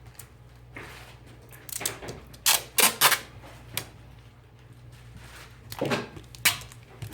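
Handling noise from phone-repair work: a run of short scrapes and clicks about two seconds in, and a few more about six seconds in, over a steady low hum.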